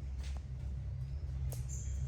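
Baby monkey giving one brief high-pitched squeak near the end, over a steady low hum and a few faint clicks.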